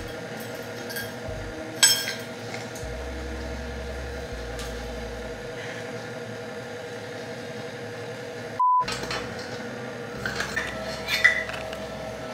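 Light clinks and taps of a measuring cup and utensils against kitchen bowls and containers, with a sharper clink about two seconds in and a cluster of small taps near the end. A short, steady electronic beep sounds about two-thirds of the way through.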